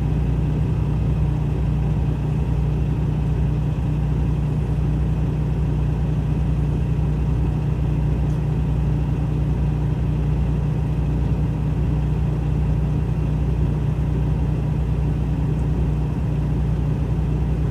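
Diesel engine idling steadily: a low, even drone with no knocks or changes, heard from inside the truck cab.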